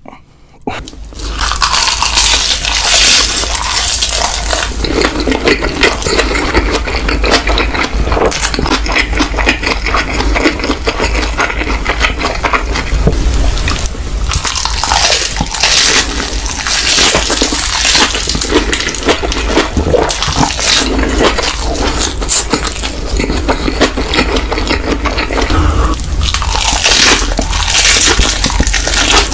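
Close-miked eating: a man slurping and chewing stir-fried instant noodles wrapped in roasted seaweed, with many wet clicks and smacks.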